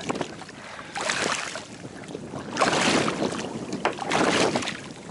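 Water sloshing and splashing around people wading chest-deep through a lagoon, in uneven surges, with wind buffeting the microphone.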